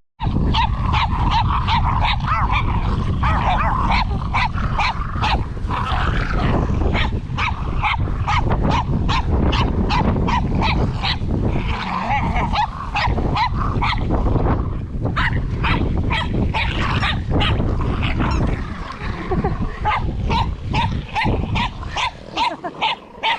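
English bulldog puppies playing, with dog growls and yips over a steady low rumble and many short clicks and knocks.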